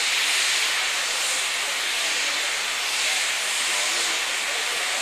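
Vintage metre-gauge steam locomotives working a train up a steep grade, with a steady hiss of escaping steam.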